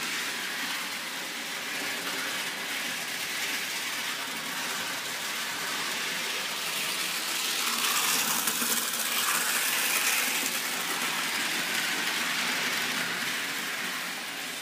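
Model train running on its track: a steady whirring rattle of the small motor and wheels on the rails, a little louder about halfway through.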